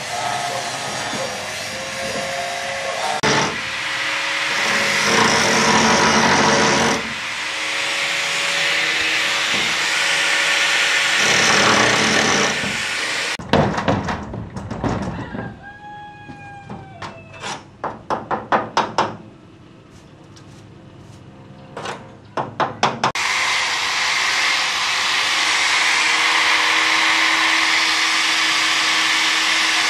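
Electric angle grinder cutting through the corroded steel floor sheet of a truck bed, with a loud, steady grinding and a motor whine. About halfway through the grinder stops, and a run of sharp metal knocks and clanks follows, some of them ringing. Then the grinder starts cutting again and runs steadily to the end.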